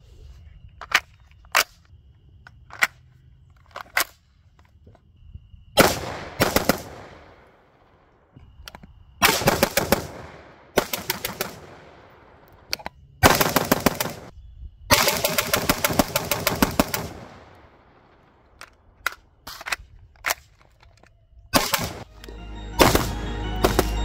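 G36K-style carbine firing: a few single shots, then several full-auto bursts, the longest about two seconds, each followed by a trailing echo. Music comes in near the end.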